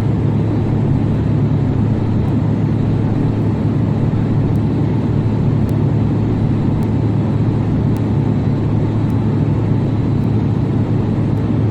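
Airplane cockpit interior noise: a steady, even drone of engines and airflow with a deep hum.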